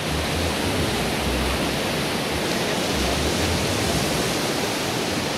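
Surf breaking and washing up a sandy beach, a steady rush of waves, with wind buffeting the microphone in low rumbles.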